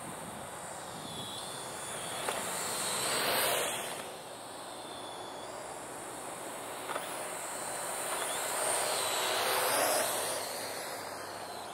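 Parrot AR.Drone 2.0 quadcopter's electric motors and propellers whirring in flight, a high whine over a rushing noise. It swells louder twice, about three seconds in and again near ten seconds, as the drone comes closer.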